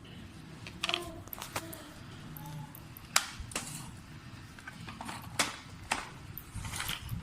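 Irregular sharp clicks and knocks of small hard objects being handled, about half a dozen over a few seconds, with a low background hum.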